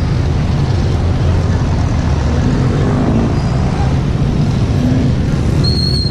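Steady road traffic with vehicle engines running close by, a dense even rumble. A brief high-pitched tone sounds near the end.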